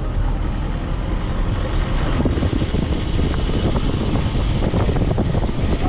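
A road vehicle on the move, its running drowned in heavy, uneven wind rumble on the microphone.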